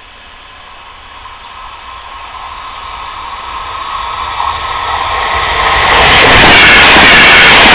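An electric train approaching at speed on the near track, its rushing noise growing steadily louder and overloading the microphone about six seconds in.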